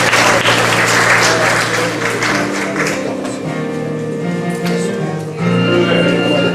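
Audience applause over stage-musical music; the clapping dies away after about three seconds, leaving the music's held chords, which change about five seconds in.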